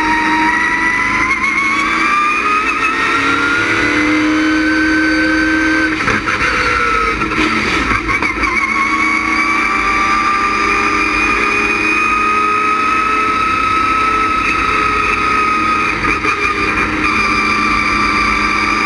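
Race car's LS6 V8 engine at racing speed on track: revs climb over the first few seconds, fall away sharply about six seconds in as the driver lifts or shifts, then climb again and hold high.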